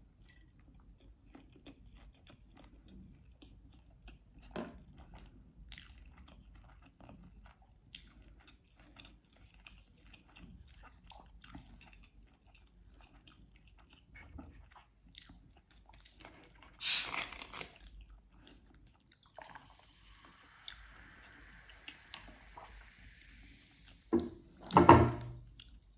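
Soft, close-miked chewing and biting of sushi, with small wet mouth clicks. There is a short, louder noisy burst about two-thirds of the way through, and two loud thumps near the end.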